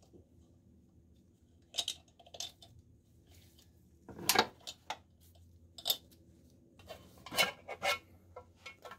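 Metal clinks and knocks as valve cover bolts are taken out by hand and the valve cover is lifted off a pushrod engine's cylinder head: scattered sharp clicks, the loudest about four seconds in and a cluster of them near the end.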